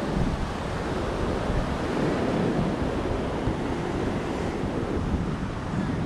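Small waves washing up and draining back on a sandy shore, with a fuller wash about two seconds in. Wind buffets the microphone, adding a gusty low rumble.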